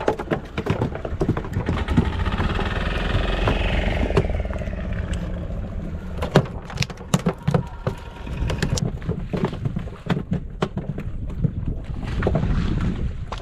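Fishing boat's engine running with a steady low rumble, its pitch falling around two to five seconds in, under frequent knocks and clatter on the deck, thickest about six to nine seconds in.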